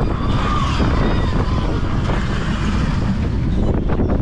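Seven Dwarfs Mine Train roller coaster car running along its track: wind buffets the microphone over the rumble of the wheels, with a brief high squeal about half a second in.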